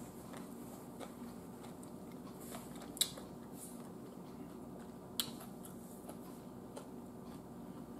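Quiet room tone with a low steady hum, broken by two short sharp clicks, about three and five seconds in.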